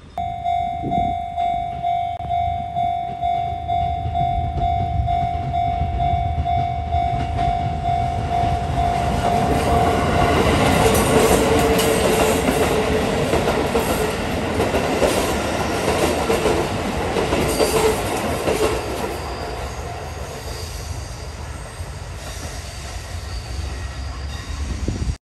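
A railway level-crossing bell rings about twice a second for the first ten seconds. Then a Shin-Keisei electric train passes close by, its wheels clicking over the rail joints over a steady whine, and the noise fades to a lower rumble.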